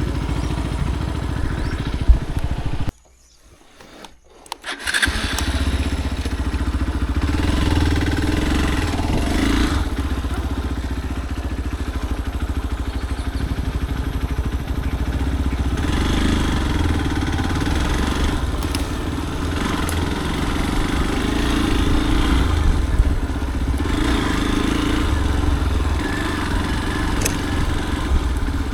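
Motorcycle engine running steadily while riding, with a low hum under a constant noisy wash. The sound drops almost to silence for about two seconds shortly after the start, then comes back.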